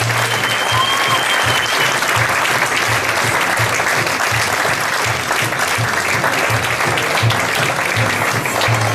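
A roomful of guests clapping steadily, with music playing underneath.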